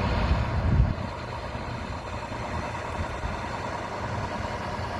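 Road traffic: a vehicle's engine passes close and louder in the first second, then a steady low hum of traffic and running engines.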